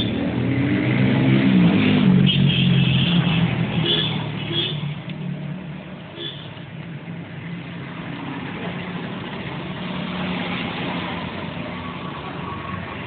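A motor vehicle's engine revving up, rising in pitch over the first two seconds, then running steadily and growing quieter after about five seconds.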